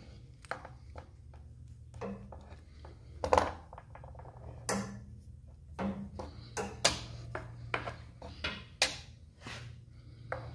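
Brass hose fittings, a worm-gear hose clamp and a metal multi-tool clinking and knocking against a wooden board as they are handled and set down: a dozen or so irregular sharp clicks, the loudest a little over three seconds in. A steady low hum sits underneath.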